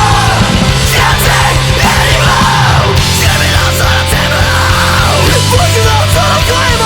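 Loud, dense metalcore music: heavy distorted guitars and drums, with yelled vocals.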